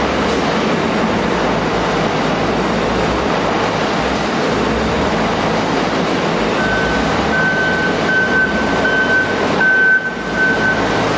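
Volvo L110F wheel loader's reversing alarm beeping about twice a second, starting a little past halfway in, over a steady loud din of the loader's diesel engine and machinery.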